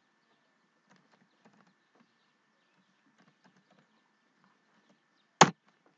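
Quiet typing on a computer keyboard: faint, scattered keystrokes, with one sharp, loud click about five and a half seconds in. A faint, steady, high-pitched whine sits underneath.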